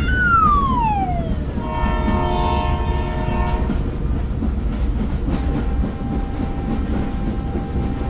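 Train sound effects: a steady low running rumble, with a horn whose pitch slides down over the first second or so. Then a steady horn chord sounds for about two seconds, and a faint steady tone comes in after about five seconds.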